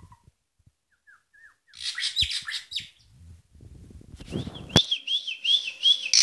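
Drongo (srigunting) singing: a few soft whistled notes, then bursts of harsh, quick chirps, and in the last third a warbling phrase repeated about six times. A single sharp knock sounds just as the warbling begins.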